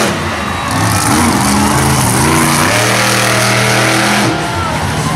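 Monster truck engine revving hard, its pitch climbing about two seconds in and holding high for over a second before it drops away.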